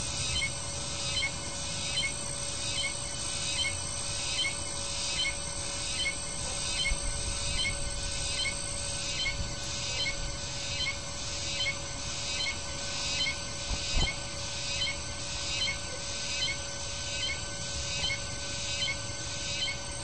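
A small bird's short, high call repeated very evenly, about twice a second, over a steady background hum.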